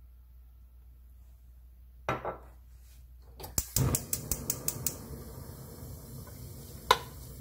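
A cooking utensil knocking and scraping in a nonstick pot as cubed beef is stir-fried: quiet at first, a bump about two seconds in, then a quick run of clicks and one sharp knock near the end.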